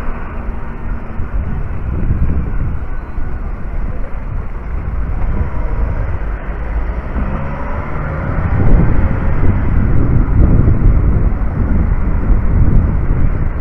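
Street traffic: engines and tyres of passing vans, cars and buses in a dense low rumble that gets louder about two-thirds of the way through.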